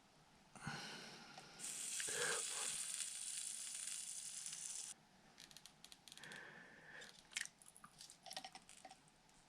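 Solder and flux sizzling as a wire is soldered to an XT-90 connector: a steady high hiss for about three seconds that stops abruptly, followed by light clicks of the connector and tools being handled.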